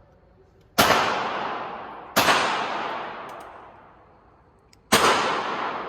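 Three gunshots, the first two about a second and a half apart and the third nearly three seconds later, each trailing off in a long echo.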